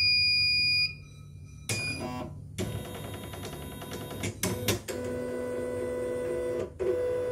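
CNY computerized embroidery machine powering up: a long high start-up beep of about a second, then its motors whirring in several stretches as the machine runs its start-up movement. The start-up appears normal to the technician.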